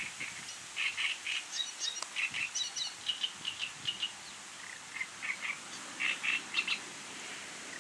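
A songbird singing: a long string of short chattering notes, several a second, with a pause around the fifth second, over a steady background hiss.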